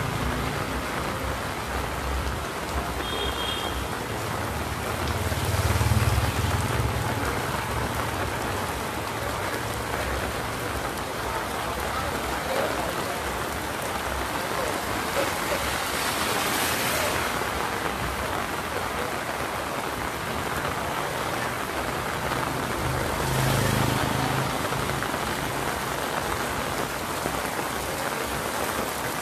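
Heavy rain falling steadily on a paved street and shop awnings, a dense even hiss. A low rumble swells up twice, about six seconds in and again near the end.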